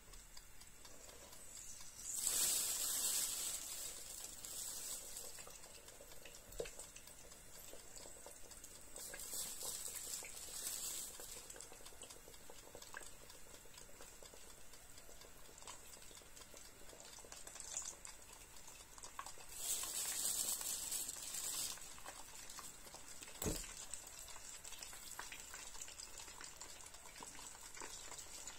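Steamed meat buns (baozi) being set into hot oil in an electric pot to pan-fry, each one starting a burst of sizzling that swells and fades over a second or two; three such bursts stand out over a steady faint hiss of frying oil. A single sharp knock comes near the end.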